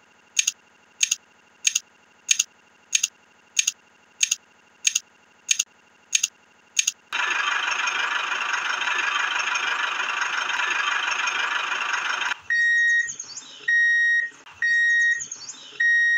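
Short electronic beeps repeating about one and a half times a second for about seven seconds, then a steady rushing, whirring noise for about five seconds that cuts off suddenly, then four longer high beeps, each about half a second.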